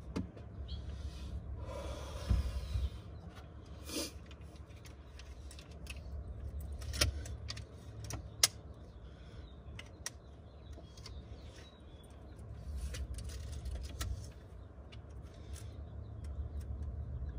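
Scattered clicks and knocks of a tape measure and a length of 4x4 lumber being handled on a plywood platform, with a short rattling stretch a couple of seconds in, over a steady low rumble.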